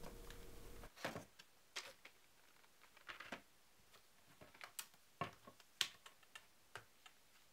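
Faint rustles and light taps of plastic blister packs and a booklet being taken from a cardboard box and set down on a cutting mat, a dozen or so soft, scattered clicks.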